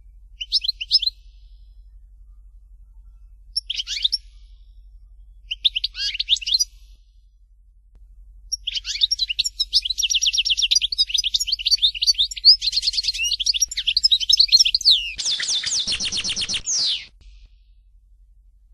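European goldfinch singing: three short twittering phrases, then a long run of rapid, high twittering song from about nine seconds in. It has a harsher stretch just before it stops abruptly near the end.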